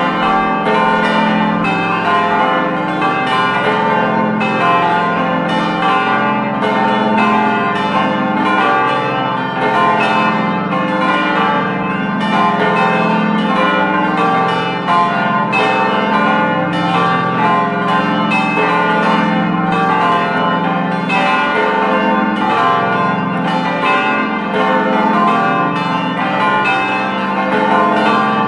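A peal of large church bells from a bell gate of eight bells, weighing 220 to 2800 kg, ringing together in a continuous, loud peal. The strikes come a couple a second and overlap, so the different pitches hum on between them.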